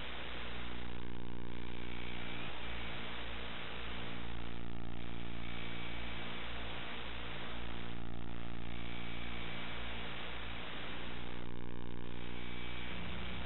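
Hiss and electrical hum from a blank stretch of videotape playing back, with a faint steady whistle above it. The hiss swells and fades about every three and a half seconds.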